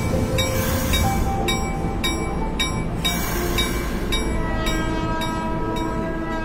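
Diesel-hauled passenger train running: a steady low rumble with regular clacks about twice a second, and held tones over it.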